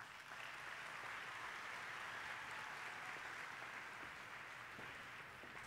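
Faint audience applause, dying away near the end.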